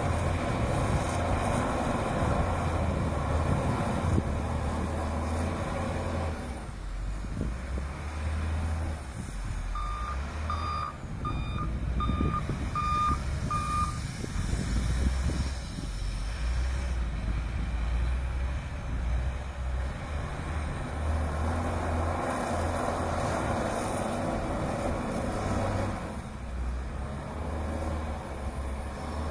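Diesel engine of a Volvo L220F wheel loader running under load, rising and falling in revs, with louder stretches near the start and again past two thirds of the way in. Its reversing alarm beeps about six times, about a third of the way in.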